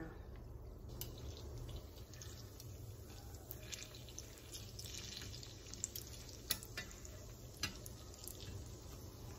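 Bread dough deep-frying in a pot of hot oil, sizzling steadily with scattered small pops, and a few sharp clicks in the middle.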